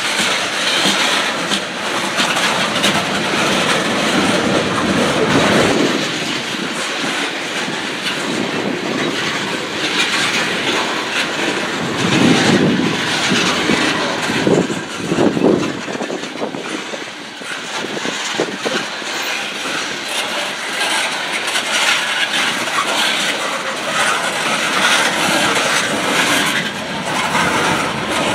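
A freight train of tank cars rolling past, its steel wheels clattering on the rails in a continuous noise that swells and fades as the cars go by.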